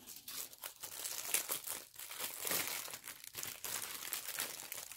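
Clear plastic packaging crinkling and rustling in the hands, in irregular crackles.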